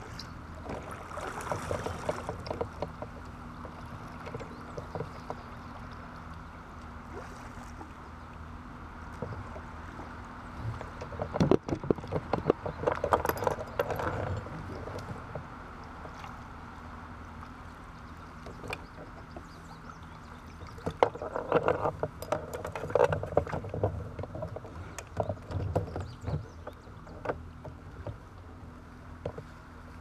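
Kayak paddle strokes and water splashing as a plastic sit-on-top kayak comes into a concrete boat ramp, then splashing in shallow water and knocks against the hull as the paddler climbs out and handles the boat. A steady low hum runs underneath, with the loudest knock and splashing about halfway through.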